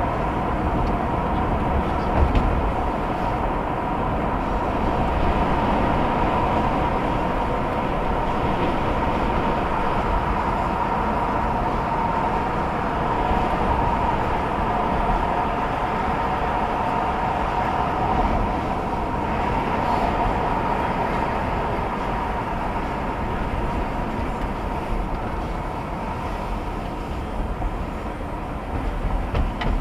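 A car driving at highway speed, heard from inside the cabin: steady tyre and engine rumble with a constant higher hum running through it. It eases off slightly near the end.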